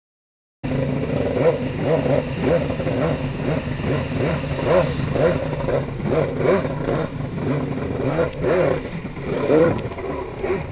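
Engine of a PHP 1015-powered Hurricane C3 stand-up jet ski running under throttle, surging up and down every half second or so, mixed with the rush and spray of water against the hull; it cuts in suddenly about half a second in.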